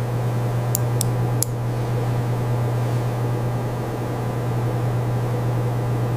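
A steady low hum over an even hiss, with three small ticks in the first second and a half.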